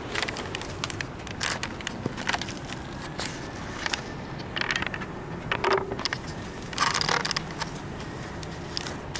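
Irregular clicks, scrapes and rustles from handheld movement around a parked pickup, over a steady background of street traffic.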